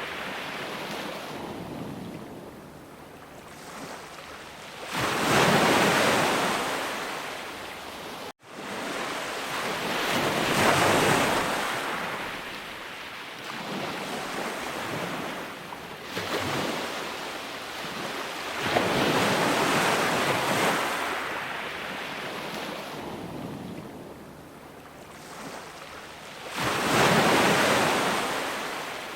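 Ocean waves breaking and washing up a shore, swelling into a loud surge every several seconds and easing off between. There is a split-second dropout about eight seconds in.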